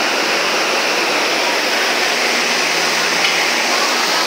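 Steady rushing noise of factory machinery, with a faint low hum underneath and a small click about three seconds in.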